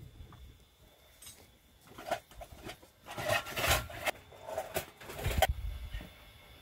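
Irregular clattering and knocking of hard objects, a burst of it in the middle stretch.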